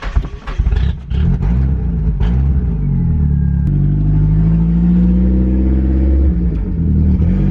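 Engine of a turbocharged Mazda MX-5 running under load, with a few sharp cracks in the first second or so. The revs shift about a third of the way in, climb a little and then ease off near the end.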